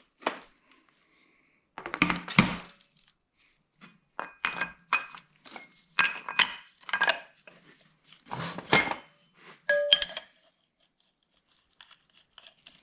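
Steel tool parts clinking and clanking as a clamshell bearing puller's halves and retaining ring are handled and fitted around a differential carrier bearing. Several bouts of clatter, some strikes leaving a brief metallic ring.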